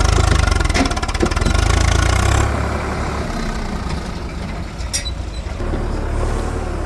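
Heavy diesel engine of the machinery running under load, loud for the first couple of seconds and then easing back to a steadier, lower rumble, with a sharp click about five seconds in.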